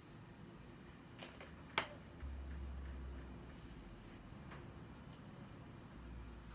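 Faint handling of paper on a sketchbook: a cut-out being pressed down, a sharp tap about two seconds in, a low bump and a brief soft rustle. Near the end a pencil starts scratching lightly on the paper.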